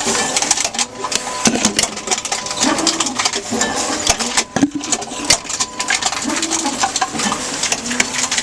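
Tomra T-X2 reverse vending machine taking in plastic bottles: its motor whirs in short repeated runs while bottles clatter and click through the mechanism.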